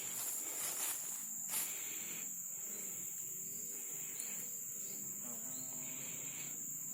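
Steady high-pitched insect chorus, one continuous shrill trill with no breaks.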